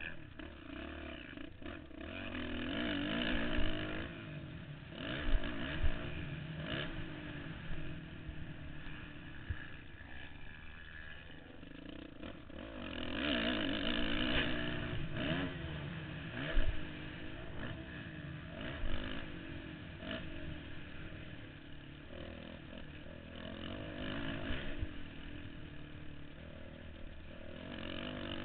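Motocross dirt bike engine heard from the rider's helmet, revving up and falling off again and again as the rider accelerates and shifts around the track. Several sharp knocks come through along the way.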